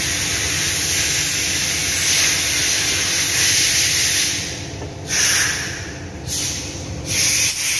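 A loud, steady hiss that fades about four seconds in, then returns in two short bursts.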